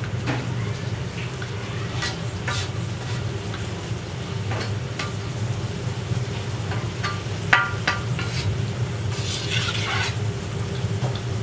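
A metal perforated skimmer scraping and clinking against a large steel kazan as rice is spread and levelled over the simmering meat broth for pilaf, with a steady low rumble underneath. One sharp metallic clink about two thirds of the way through is the loudest sound, and a longer scrape comes near the end.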